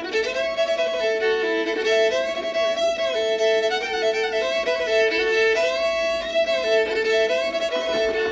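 A fiddle playing a tune: a bowed melody that moves against a steady drone note held the whole time.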